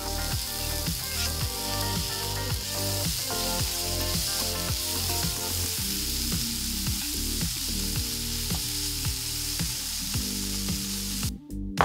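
Chopped tomatoes hitting a hot oiled frying pan of sautéing onion, carrot and bell pepper and sizzling steadily as they are stirred with a spatula, over background music with a steady beat. The sizzle cuts off suddenly near the end.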